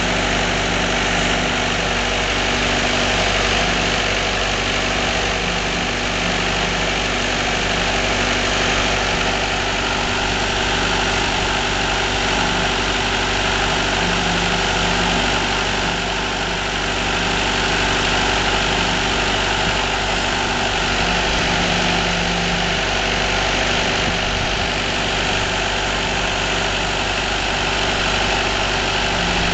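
Firewood processor's engine running steadily at constant speed, with an even drone and no distinct splitting or cutting impacts.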